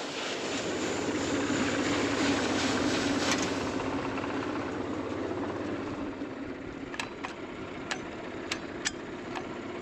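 Small inline four-cylinder tractor engine running steadily, under a loud rushing noise that fades away over the first few seconds. Several sharp clicks follow near the end.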